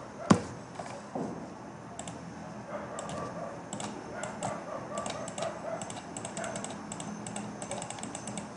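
Computer keyboard keys being tapped in irregular runs of clicks, with one sharper click about a third of a second in.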